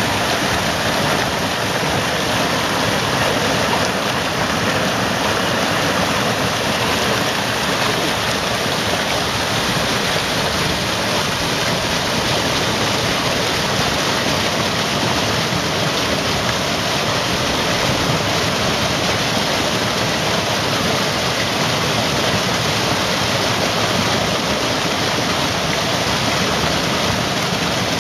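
Mountain creek rushing over boulders, with a small cascade pouring into a pool: a steady, even rush of splashing water.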